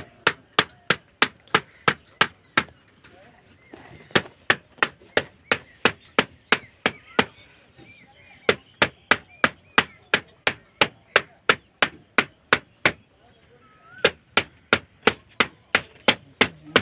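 A JCB backhoe loader's cylindrical air filter element being knocked over and over to shake out caked dust. The knocks are sharp and come about three a second, in runs broken by short pauses about three, seven and a half and thirteen seconds in.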